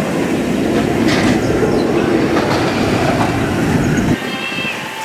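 Drop-tower ride vehicle with its ring of riders plunging down the tower: a loud, rolling rumble that cuts off abruptly just after four seconds in.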